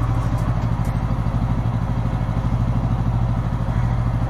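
Bajaj Pulsar N160's single-cylinder engine idling steadily, with an even pulse.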